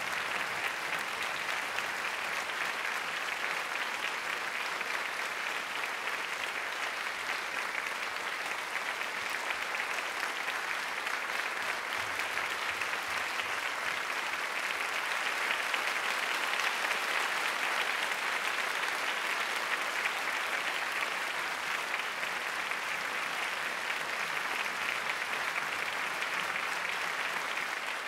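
Theatre audience applauding steadily, swelling slightly about two-thirds of the way through.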